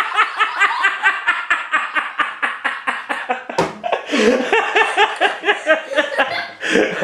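Children laughing hard in quick, even 'ha-ha' pulses, with one sharp click about three and a half seconds in.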